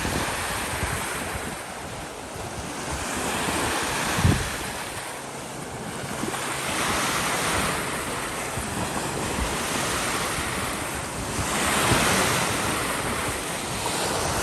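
Lake waves washing against the shore, swelling and ebbing every few seconds, with wind buffeting the microphone. A brief low thump about four seconds in.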